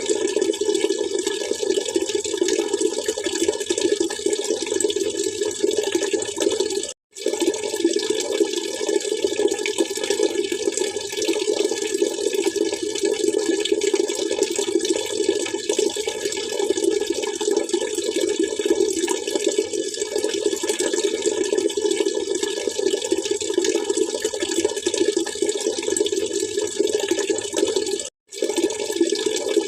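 Water splashing and gurgling in a steady, continuous rush. It cuts out to silence for a split second about seven seconds in and again near the end.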